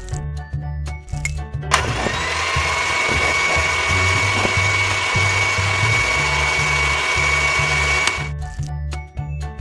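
Miniature electric hand mixer running, its beaters whisking a milky mixture in a glass bowl with a steady high whine. It starts abruptly about two seconds in and cuts off near the end. Background music with a steady beat plays throughout.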